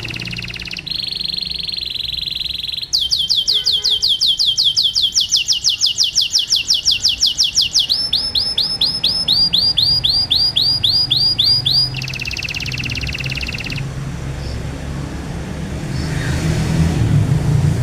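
Domestic canary in full song, delivering rapid trills: a buzzy roll, then a long fast run of upward-sweeping notes, then a slower run of falling notes and another buzzy roll. The song stops about 14 s in. A low rumble follows and swells near the end.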